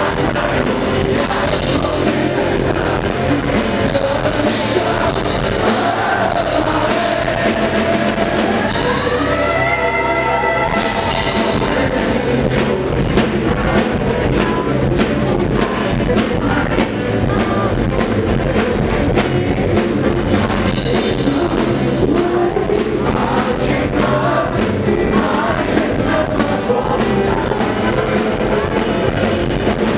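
Live rock band playing: a male vocalist sings over electric guitars, bass and a drum kit. About ten seconds in, the cymbals drop out briefly while a note slides upward, then the full band comes back in.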